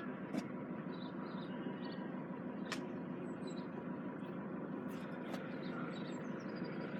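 Steady outdoor hum of road traffic at a level crossing, with a few light clicks and faint high chirps.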